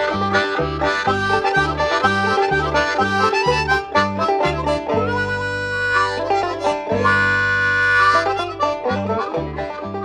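Background instrumental music in a folk or country style, with plucked strings over a steady bouncing bass and two long held chords around the middle.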